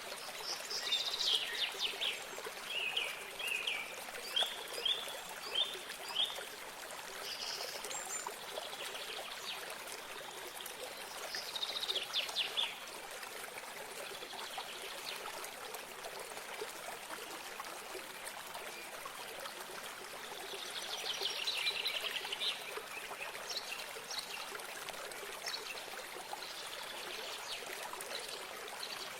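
A small stream or spring trickling steadily, with songbirds singing over it in short bursts of quick repeated notes: several phrases in the first six seconds, one around twelve seconds and another around twenty-two seconds.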